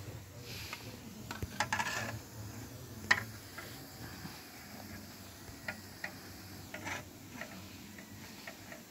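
Oil bubbling and sizzling around coils of guna dough deep-frying in a large iron wok, with scattered clicks and taps. There is a cluster of clicks a second or two in, and the loudest is a single sharp tap about three seconds in.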